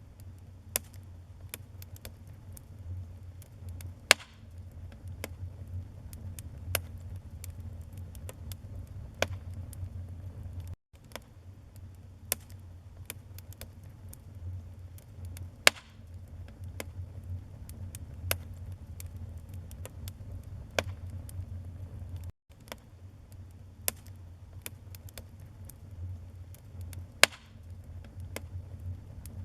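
Wood fire in a fireplace crackling: many sharp pops and snaps over a low, steady rumble, with three louder pops standing out. The sound cuts out for an instant twice.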